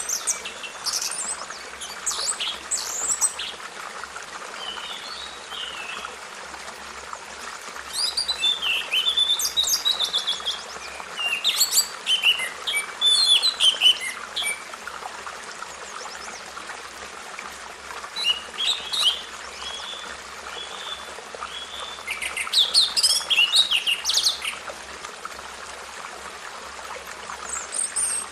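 Birds singing: bursts of quick high chirps and trills that come in phrases a few seconds apart, over a steady background hiss.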